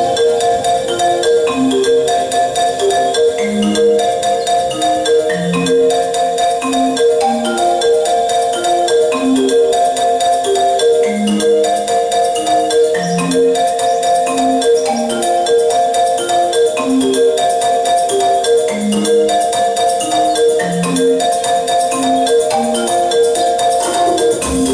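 Instrumental music: a steady stream of quick repeated high notes over a slower line of single low notes that step up and down, roughly one a second.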